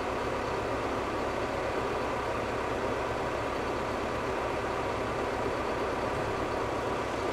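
John Deere tractor's diesel engine running steadily, with an even low pulse.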